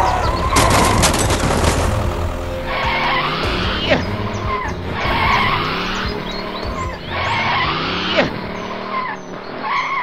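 Dubbed vehicle sound effects of tyres skidding and an engine straining, as a toy tractor tips into a sand pit. A hiss runs about half a second to two seconds in, then a skidding, revving sound repeats about every two seconds over background music.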